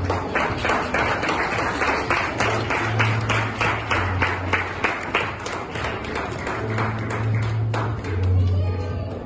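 An audience clapping together in a steady rhythm, about three claps a second; the clapping thins out near the end.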